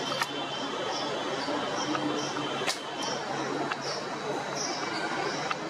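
Insects chirping: short high chirps repeating a few times a second over a steady high insect drone, with a few sharp clicks.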